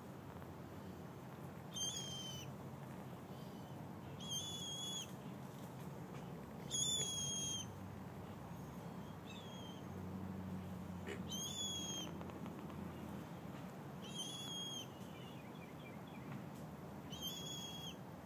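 Common gallinule (moorhen) chick peeping: a thin, high whistled peep about every two to three seconds, six in all, each about half a second long, over a low steady background hum.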